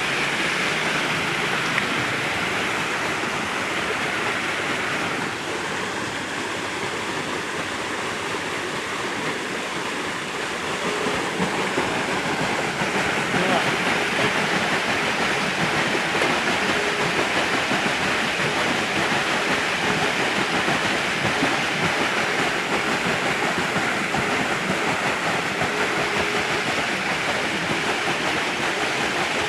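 Steady rushing water driving a homemade water-wheel generator during a test run, growing louder about eleven seconds in as the water flow is turned up. The wheel and drivetrain run under it, with a faint hum that comes and goes.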